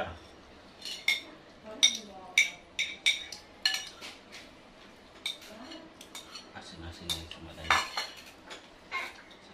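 Metal spoons clinking and scraping against plates and a bowl while people eat, in irregular sharp clinks.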